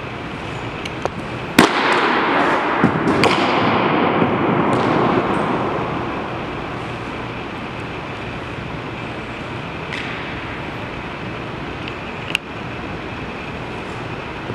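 A baseball pops sharply into a catcher's mitt about a second and a half in, the sound echoing around a gymnasium for a few seconds. A few softer knocks follow, then another sharp pop near the end.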